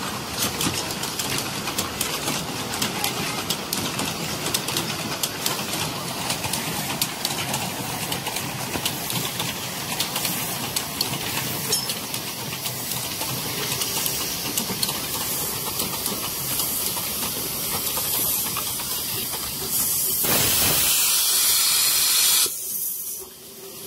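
Two miniature steam locomotives running, a steady noisy clatter full of small clicks. Near the end a loud, steady steam hiss lasts about two seconds and cuts off suddenly.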